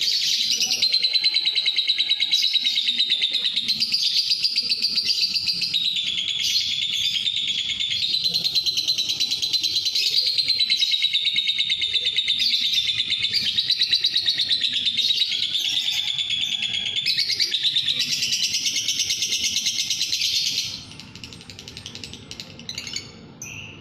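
Lovebird singing a long, fast, unbroken chattering trill that stops abruptly near the end, followed by a few softer calls.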